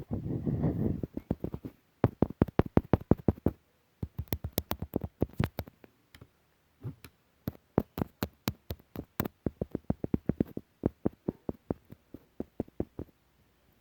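Rapid runs of sharp clicks or taps, about six or seven a second, broken by short pauses; a rough, noisy sound fills the first couple of seconds.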